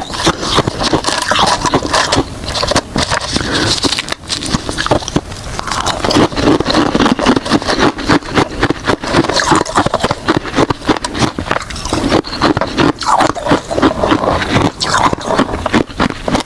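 Ice being bitten and crunched close to the microphone: a continuous, rapid run of sharp cracks and crunches.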